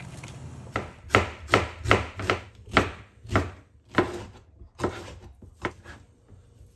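Kitchen knife chopping a yellow bell pepper and then cooked chicken breast on a cutting board. About a dozen sharp knife strikes against the board come roughly two a second and grow fainter near the end.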